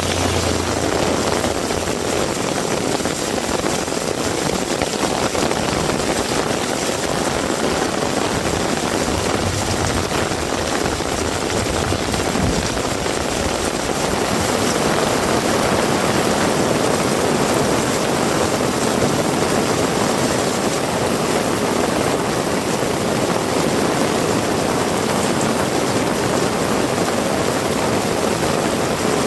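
Heavy rain pouring steadily, a dense even hiss with no letup, growing a little louder and brighter about halfway through.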